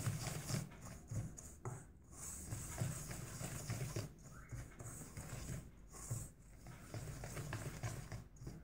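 Silicone whisk stirring dry semolina and flour in a stainless steel bowl: faint, uneven swishing and scraping.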